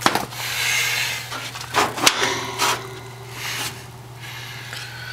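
Scraping and rubbing noises with a few sharp knocks about two seconds in, over a steady low hum.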